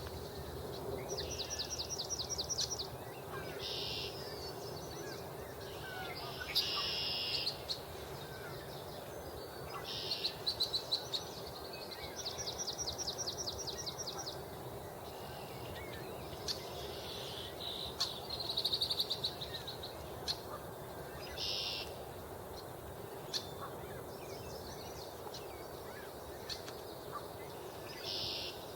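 Several songbirds singing in a marsh: high trills and buzzy phrases, some made of rapid even pulses, come every second or two, with a faint steady low hum underneath.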